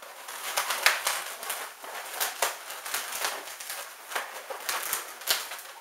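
Latex modelling balloons rubbing and squeaking against each other as they are twisted together, a quick irregular run of squeaks and crackles.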